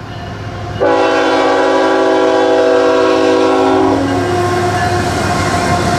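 A CSX freight locomotive's air horn sounds one long blast of about three seconds, a multi-note chord that starts suddenly about a second in. The train's rumble and the rolling rail noise of the freight cars continue after the horn stops.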